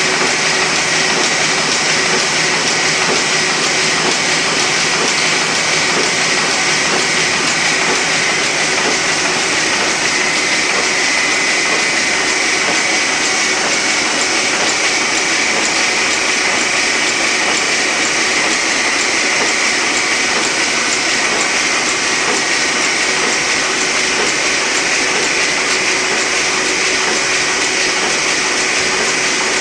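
Heidelberg MOZP sheetfed offset printing press running steadily: a continuous, even mechanical noise with a constant high whine.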